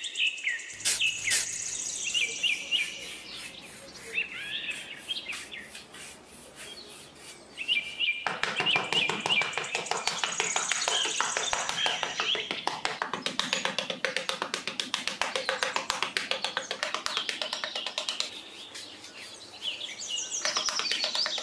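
A small trowel scraping and patting damp sand in quick repeated strokes, over birds chirping and background music.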